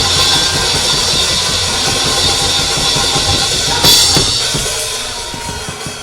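Live church band drum kit playing a busy stretch of bass drum and snare strokes with cymbals, a crash about four seconds in, then dying down near the end: a short musical burst after the call to shout.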